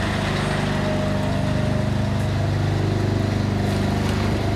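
Large lorry's diesel engine running steadily at low revs, a low even engine note.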